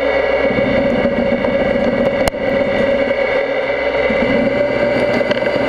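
Niles-Simmons N20MC mill-turn machine cutting a steel crankshaft: a steady machining whine with one strong tone and higher overtones above it, and a brief click about two seconds in.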